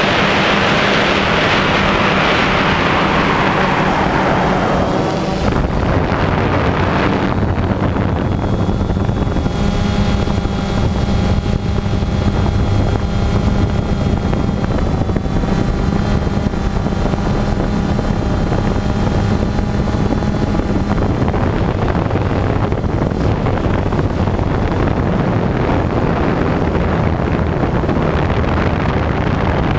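Multirotor drone's motors and propellers humming steadily, heard from the onboard camera, with wind rushing on the microphone. The wind is loudest for the first few seconds, and the hum holds an even pitch after that.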